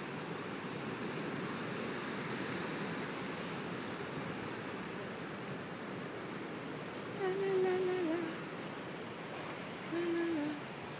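Ocean surf breaking and washing steadily. Two short pitched voice-like sounds come through over it, one at about seven seconds and a shorter one about ten seconds in.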